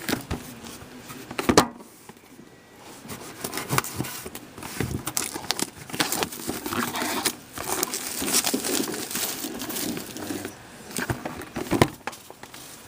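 Plastic packaging crinkling and tearing as a box of hockey cards is opened, with scattered clicks and knocks from handling the box and cards.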